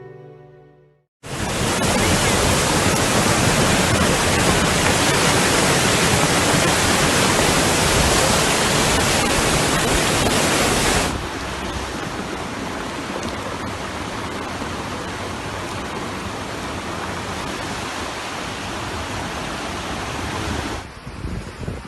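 Loud, steady rush of water, typical of floodwater or a torrential downpour. It starts abruptly after a moment of silence, and about halfway through it cuts to a quieter, similar rush.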